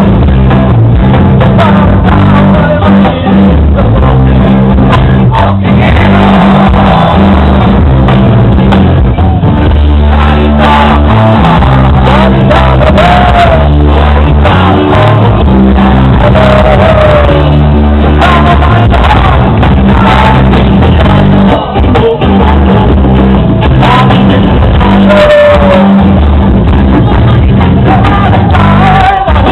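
Live rock band playing loud, with electric guitars, drums and a singer.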